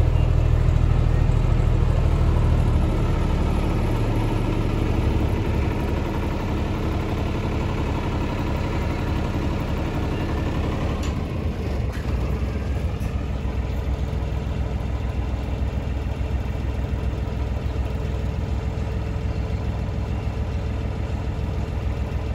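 Engine of a ride-on Thomas the Tank Engine miniature locomotive running steadily at rest. It is louder for the first few seconds, then settles to a lower, even idle, with a couple of faint clicks about halfway through.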